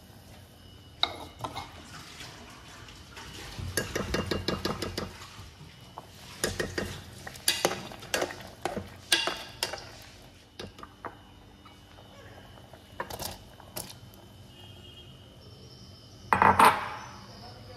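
Metal utensils clinking and scraping against a pot while boiled vegetables are stirred. There is a quick run of scrapes about four seconds in, scattered knocks and clinks after it, and a louder clatter near the end.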